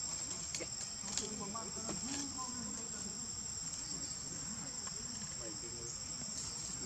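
Steady, high-pitched drone of an insect chorus, with a faint low murmur beneath and a few small ticks.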